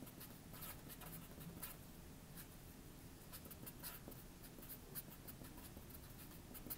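Faint, irregular short strokes of a black Sharpie felt-tip marker writing letters on paper.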